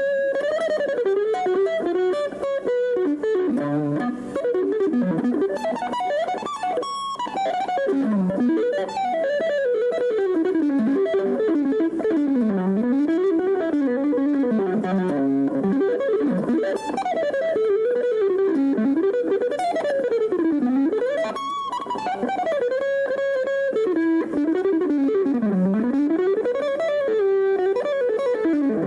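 Guitar music: a single fast melodic line that runs rapidly up and down in pitch without a break.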